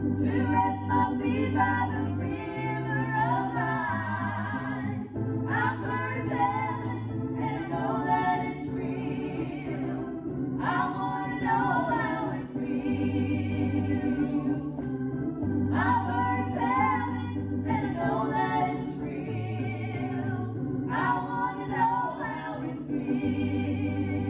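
Gospel music: voices singing in phrases over a sustained organ accompaniment with a moving bass line.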